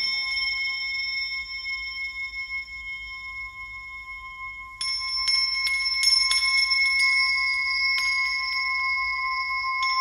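Soundtrack music of struck bells: long ringing tones that hang on, with a fresh cluster of strikes starting about five seconds in and one more near the end.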